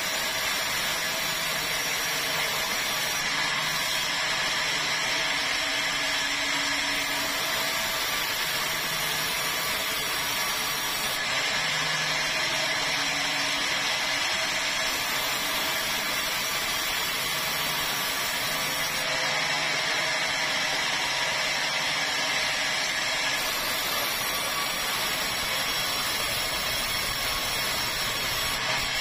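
A sawmill saw running steadily and ripping red meranti timber lengthwise: a constant dense cutting and machine noise, with a low hum that swells and fades every few seconds.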